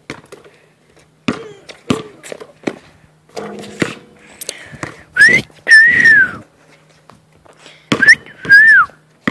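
A person whistling a loud two-part whistle, a short rising note then a longer one that arches up and falls away, given about halfway through and again near the end. Before it come a few sharp thuds of a basketball bouncing on concrete.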